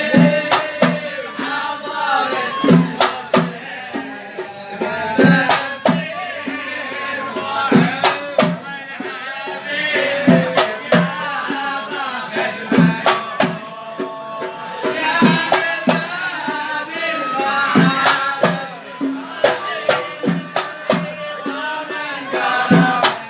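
Men singing in the Hadrami 'awani' folk style over a steady drum beat, with sharp hand-drum strikes landing every second or so.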